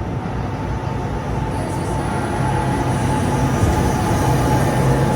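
NJ Transit Arrow III electric multiple unit moving along the platform with a steady low hum and rumble. A high squeal from the running gear comes in about a second and a half in.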